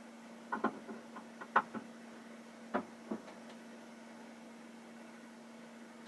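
A quick cluster of sharp clicks and knocks, mostly in the first half, over a steady low hum.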